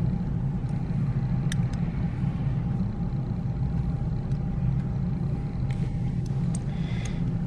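A steady low hum, with a few faint metallic clicks of gold Maple Leaf coins knocking together as they are stacked and slid back into their plastic tube, once early and a few times near the end.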